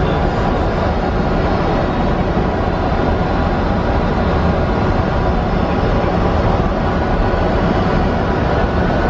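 Steady rush of airflow and jet engine noise heard inside the flight deck of an Airbus A300-600 descending on approach, with a faint steady whine above it.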